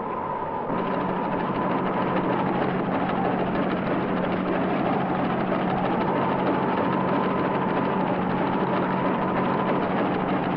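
Combine harvester running steadily, with a low hum that comes in just under a second in. Over it a high tone slowly rises and falls every few seconds.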